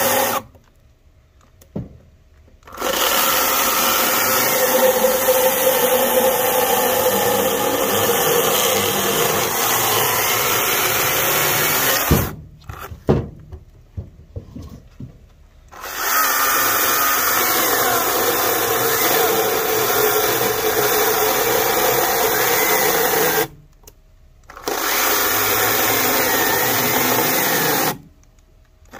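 Greenworks Commercial GS110 battery-powered top-handle chainsaw running under load in long stretches, its motor whine wavering as it cuts. It cuts out abruptly four times, for one to four seconds each, before running again.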